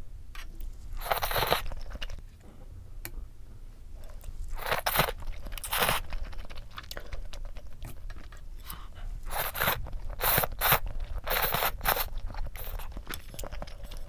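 Close-up mouth sounds of eating udon noodles: several loud slurps about a second long, near the start, around five to six seconds in and three more between nine and twelve seconds, with wet chewing between them.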